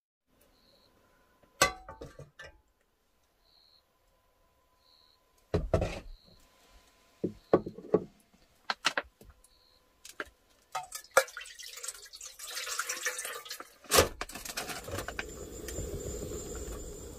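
Scattered light knocks of dishes being handled, then liquid being poured into a pot. About 14 seconds in a portable butane stove's igniter clicks sharply, and the burner's gas flame then hisses steadily.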